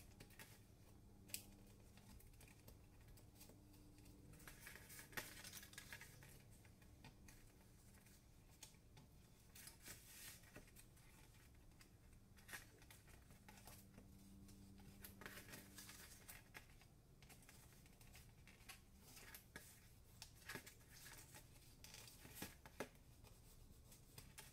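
Faint, scattered rustles, taps and scrapes of brown cardstock being folded along its score lines and creased with a plastic folding tool.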